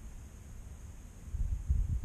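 Wind buffeting the microphone as a low, uneven rumble that gusts stronger about two-thirds of the way in, over a faint steady high hiss.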